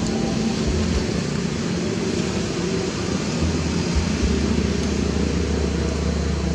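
Steady rushing noise of road traffic, with a low hum that comes in about a second in and holds again from about halfway.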